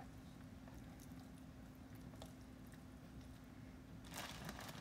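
Quiet handling of sliced cooked beef on a wooden cutting board: faint soft squishes as bare hands slide the slices through the meat juices, over a steady low hum. A brief louder brushing noise comes about four seconds in.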